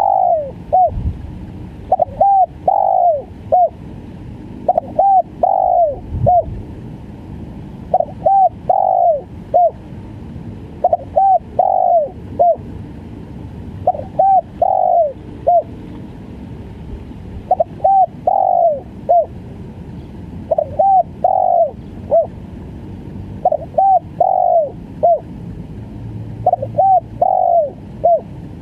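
Spotted dove (tekukur) cooing in the stuttering 'gagap' style: a phrase of two quick short coos, a longer falling coo and a short final coo, repeated about every three seconds.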